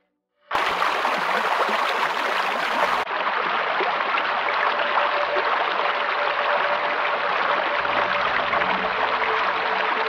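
A shallow stream rushing and splashing over stones in small rapids. It starts suddenly about half a second in after a moment of silence, then runs loud and even.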